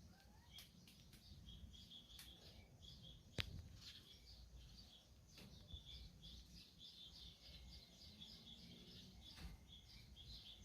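Small birds chirping and twittering with many quick, high notes, faint but continuous. A single sharp click about three and a half seconds in.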